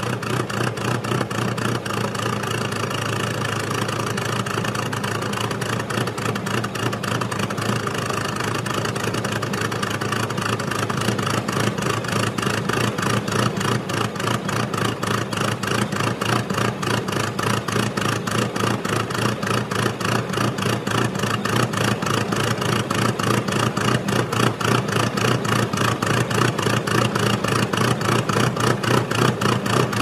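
Untuned car engine idling with a steady, evenly pulsing beat, growing slightly louder over the second half.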